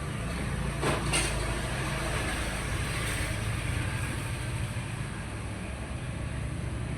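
A motor running with a steady low hum, with two short clicks about a second in.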